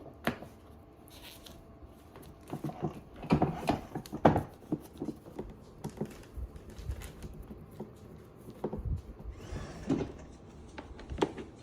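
Scattered clicks and knocks of plastic parts being handled and fitted together, a few louder knocks around the middle.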